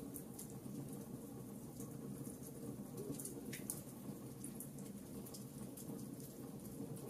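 Wood fire burning in a fireplace: a steady low hiss with irregular small crackles and pops from the logs.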